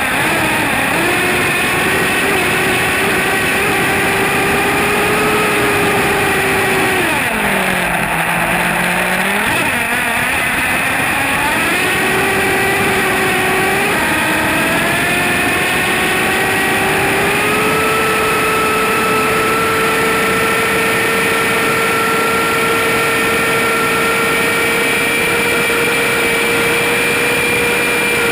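HPI Savage X SS nitro RC truck's small glow-fuel engine running hard, heard from a camera riding on the truck. About eight seconds in, the pitch drops sharply as the throttle is eased off, then climbs back. From then on it holds a steady high-speed note, rising slowly near the end.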